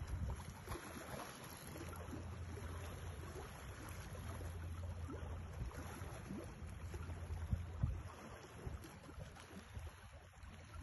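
Steady low rumble of wind on the microphone, with a faint wash of water and a few soft ticks.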